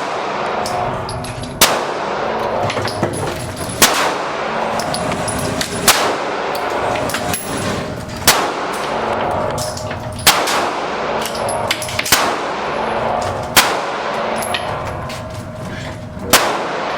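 Loud gunshots at a shooting range: about eight sharp cracks, roughly one every two seconds, each with a ringing echo, over a steady background din.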